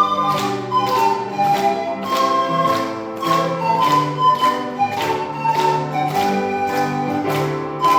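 Pan flute playing a slow hymn melody in long held notes over a backing accompaniment of chords with a steady beat.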